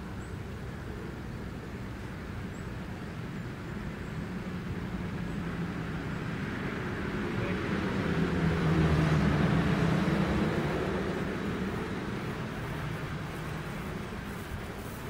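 A road vehicle driving past, its engine and tyre noise growing louder to a peak about nine seconds in and then fading away.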